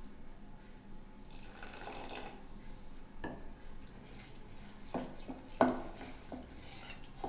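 A spoon stirring gram-flour batter in a steel bowl: a wet stirring sound, then several sharp clinks of the spoon against the bowl, the loudest about two thirds of the way through.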